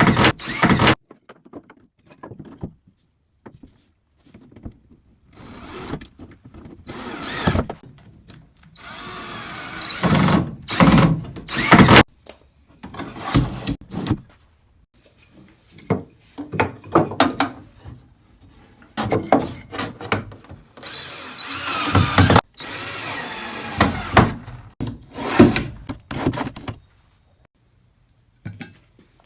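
Power drill running in repeated short bursts with pauses between, some bursts carrying a steady high whine, as screws are driven into wood.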